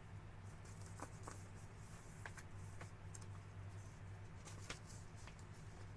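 Faint paper rustling and a few light clicks as a paper instruction booklet is handled and its pages turned, over a steady low hum.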